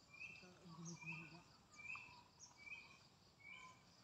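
Faint chirping: a short, high chirp repeating evenly, a little more than once a second.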